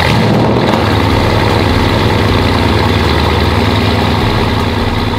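Mercedes-AMG engine idling loudly and steadily, coming in suddenly at the start and easing off a little near the end.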